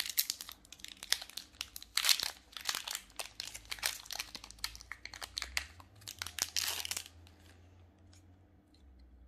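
Foil wrapper of a Magic: The Gathering collector booster pack crinkling and tearing as it is ripped open by hand, in dense, irregular crackles that stop about seven seconds in.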